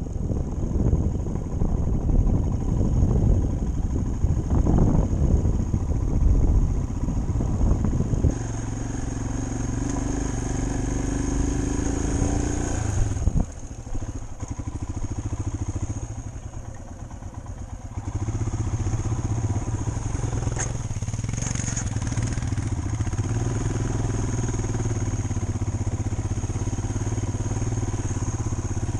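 Motorcycle engine running while riding a rough snowy dirt track, heard through a helmet camera, with heavy wind rumble on the microphone for the first eight seconds or so. After that the engine note is steady, goes quieter and sudden-drops for a few seconds about halfway through, then picks up again.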